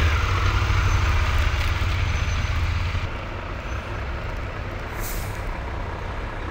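An engine running with a deep rumble that eases off about three seconds in, and a short hiss of air about five seconds in.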